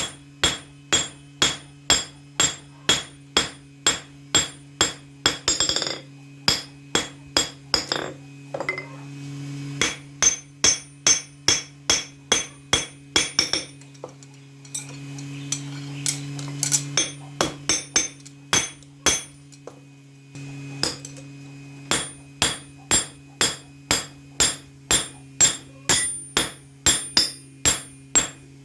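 Hand hammer forging a knife blade on an anvil: a steady run of metal-on-metal blows at about two to three a second, pausing twice. A steady low hum runs underneath.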